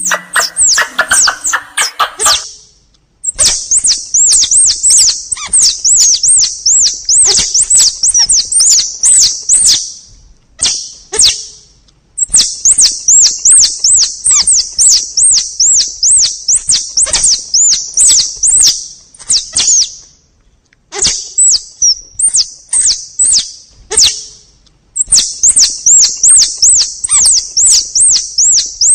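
Forest tupai lure call: a rapid run of high, sharp chirps, about three or four a second, coming in long bouts broken by short pauses.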